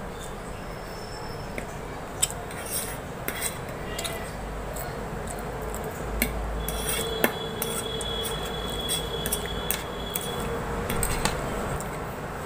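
Metal fork clinking and scraping on a plate as noodles are picked up and eaten, with scattered short clicks and chewing noises.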